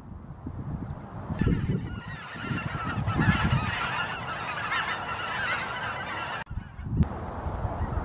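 A flock of greater white-fronted geese calling in flight: many overlapping high calls start about a second and a half in and break off abruptly near the end.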